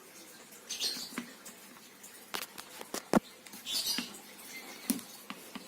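Handling noise from a motocross helmet and its goggles being moved about: scattered light clicks and knocks, one sharper knock a little past three seconds in, with brief scratchy rustles about one and four seconds in.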